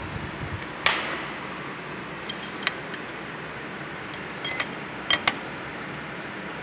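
Steel Allen key clinking against the bolts and cast-iron cross slide of a lathe as the bolts are tightened: a sharp click about a second in, then a few lighter, ringing metallic clinks, two close together about five seconds in, over a steady background hiss.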